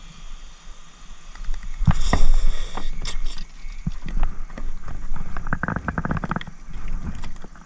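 Fishing rods and reels being handled in a jon boat's rod rack: scattered knocks and rattles, a louder clatter about two seconds in, then a quick run of rapid even clicks a little after halfway.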